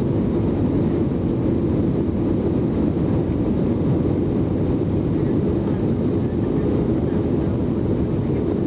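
Steady cabin noise of an Airbus A320 descending on approach with its flaps out: engine and airflow rush, an even low noise with no changes.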